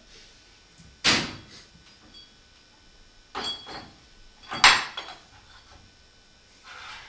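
Objects being handled and set down on a hard floor: four separate sharp knocks and clatters, some with a brief ring, the loudest about four and a half seconds in.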